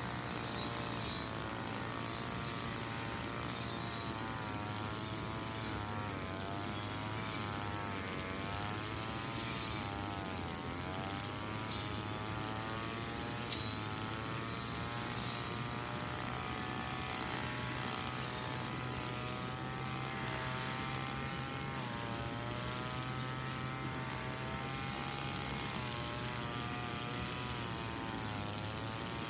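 Small two-stroke engine of a brush cutter running, its pitch rising and falling as it works through grass. Sharp ticks come through now and then in the first half.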